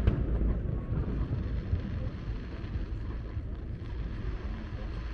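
Fireworks display: one sharp bang right at the start, then a low rumble that slowly fades, with wind on the microphone.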